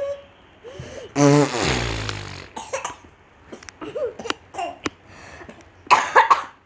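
A young girl making playful vocal noises: a loud buzzing mouth sound falling in pitch about a second in, then short clicks and bits of voice, and a loud burst near the end, with laughter.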